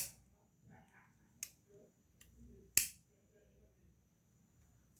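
Sharp clicks from a Leatherman Wingman multitool being handled with its knife blade open: one right at the start, a lighter one about a second and a half in, and the loudest near three seconds, with faint handling rustle between.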